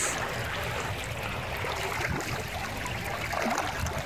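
Lake water lapping at a rocky shore, with a hooked fish splashing at the surface near the line.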